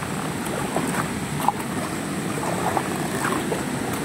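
River water flowing steadily over rocks, a constant rushing noise.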